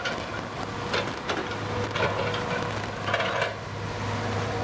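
Excavator's diesel engine running with a steady low hum and a faint steady whine, with several sharp knocks and clicks scattered through it.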